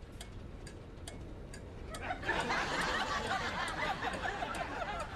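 A van's turn signal ticking steadily at about two clicks a second, a blinker left on. About two seconds in, a sitcom studio audience breaks into laughter over the ticking and becomes the loudest sound.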